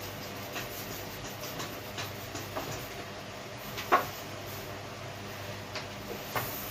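Scattered light clicks and knocks of pump and pipe parts being handled, with one sharper knock about four seconds in, over a steady low hum.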